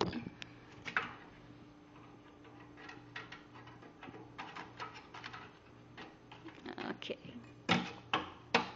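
A kitten's paw tapping and rattling the thin wire bars of a small decorative birdcage: a scatter of light clicks and taps, with a few louder knocks near the end.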